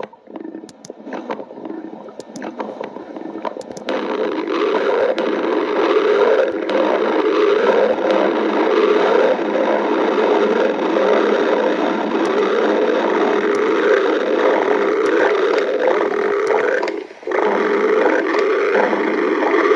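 Human stomach growling: faint gurgles and small clicks at first, then about four seconds in a long, continuous gurgling growl that breaks off briefly near the end and picks up again.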